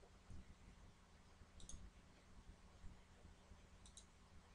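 Faint computer mouse clicks over near silence: a quick double click about a second and a half in and another near the end.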